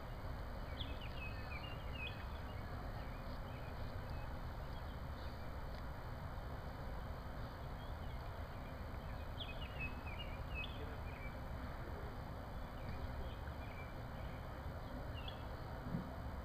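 Outdoor ambience: a steady low rumble with faint, scattered bird chirps, and a soft thump near the end.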